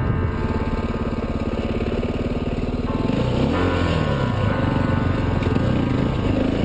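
Enduro motorcycle engine running under way over rough ground, its revs rising and then falling back about three and a half seconds in.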